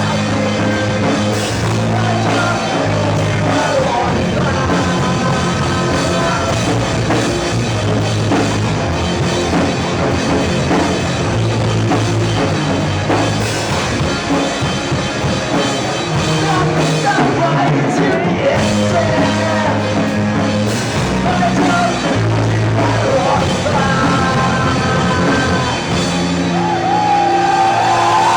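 Rock band playing live: a loud instrumental passage with bass, drum kit and melodic lines on top, no lyrics sung.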